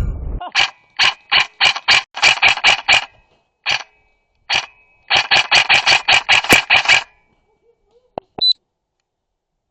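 Airsoft rifle firing in quick runs of shots, about six a second, broken by short pauses and a few single shots, stopping about seven seconds in. A couple of short clicks follow near the end.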